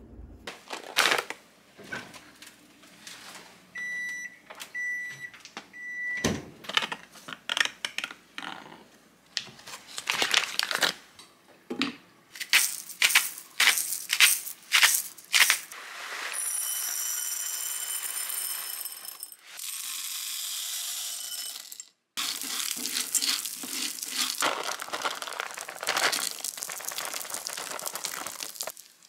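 Three short electronic beeps about a second apart, then a hand salt grinder crunching over a pan with butter in it, then a steady hiss. Near the end, dried popcorn kernels and chocolate chips rattle as they are poured from a bag into the frying pan.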